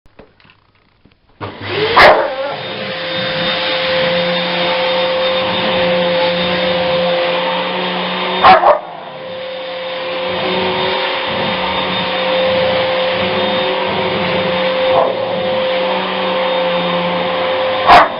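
A vacuum cleaner switched on about a second and a half in, then running steadily with a constant whine. A white German shepherd barks sharply three times over it, near the start, midway and near the end.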